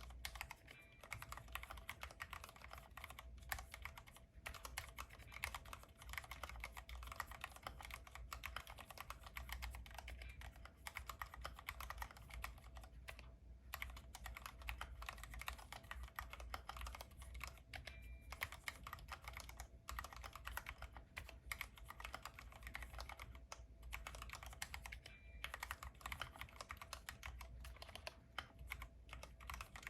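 Fast, continuous typing on a Glorious GMMK Pro 75% aluminium-cased mechanical keyboard: a dense run of key clicks with a couple of brief pauses.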